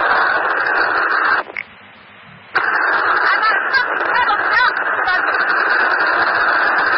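Police radio channel held open, giving a steady rush of static. About a second and a half in it drops out with a short beep, then the static comes back a second later, with faint warbling tones inside it.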